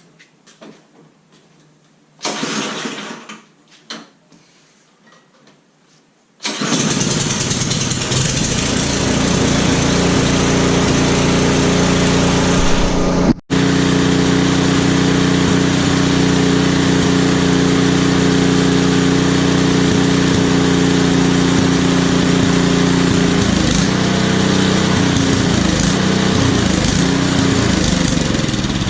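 Ariens Path Pro snowblower's single-cylinder gas engine starting about six seconds in and running steadily, without surging, on the fuel left in the carburetor after the fuel valve is shut. Near the end its note begins to waver and stumble as the carburetor runs dry.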